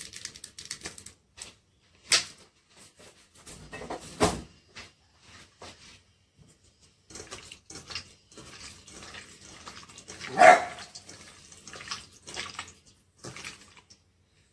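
A pet dog barking a few times, the loudest bark about ten seconds in, over small clicks and knocks of pork being mixed by hand in a bowl.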